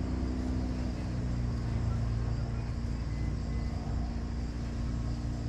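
Steady low engine drone with a constant hum, unbroken and even throughout.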